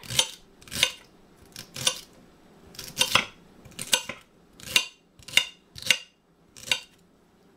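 Chef's knife chopping celery on a cutting board: about ten sharp knocks of the blade through the stalks onto the board, at an uneven pace of one or two a second, stopping about seven seconds in.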